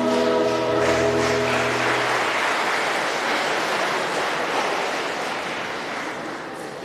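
A choir with instrumental accompaniment holds the final chord of a hymn, which ends about two seconds in. Applause starts just before the chord ends and slowly dies away.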